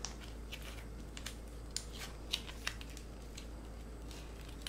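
Small plastic sauce packets being opened and handled: faint, scattered snips, crinkles and clicks, a few sharper ones a couple of seconds in.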